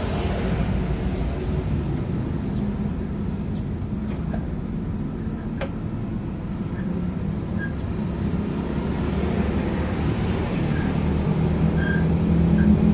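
Steady low motor-vehicle engine rumble that grows louder toward the end, with a couple of light clicks about four and six seconds in.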